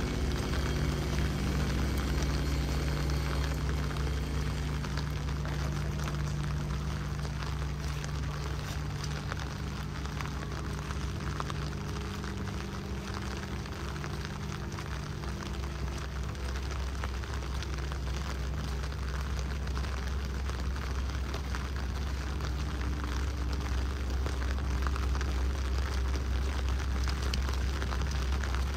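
Heavy rain falling and pattering on hard surfaces, a steady crackling hiss, over a constant low mechanical hum.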